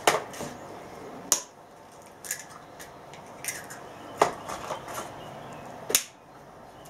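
Eggs being cracked open with a knife over a plastic mixing bowl: sharp taps on the shell, four louder clicks spread over several seconds with smaller ticks of shell and handling between them.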